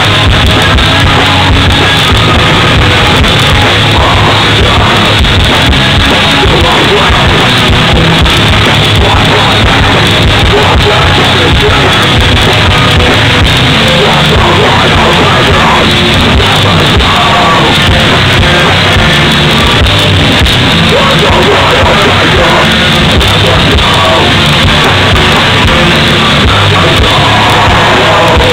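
Hardcore band playing live: distorted electric guitars and drums with yelled vocals, very loud and unbroken.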